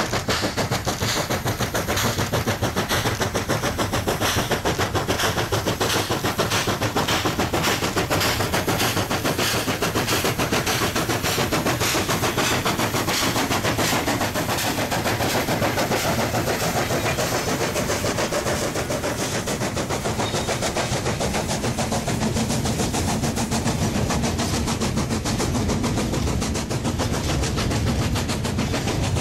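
Long steam-hauled coal train rolling past close by. Its wagon wheels click rapidly and steadily over the rail joints, mixed with the working exhaust of the steam locomotives.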